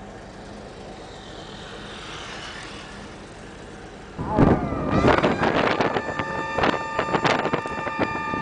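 Wind and road noise from aboard a moving military vehicle. About four seconds in, a louder run of sharp knocks starts, with several steady high-pitched tones held over them.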